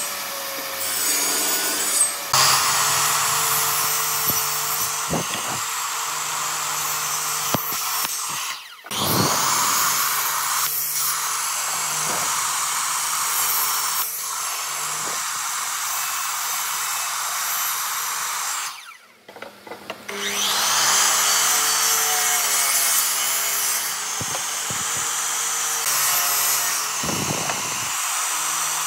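Electric circular saws cutting pine boards: a table saw ripping a board, then a miter saw making repeated cuts side by side to notch out a board. The motor hum and blade noise run steadily, and twice, after a brief dip, a saw motor spins up with a rising whine.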